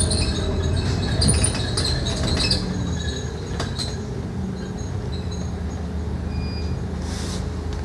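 Interior sound of a Scania K310UD double-decker bus under way: the steady low drone of its five-cylinder diesel engine and drivetrain, with light rattling and clinking from the bus's fittings. It eases off slightly about two and a half seconds in.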